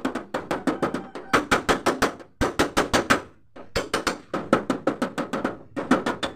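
Rapid light hammer taps on the steel door panel of a Mitsubishi L300, about eight sharp taps a second in runs of a second or so with short pauses. This is paintless dent repair (ketok magic), working the dent out without breaking the paint.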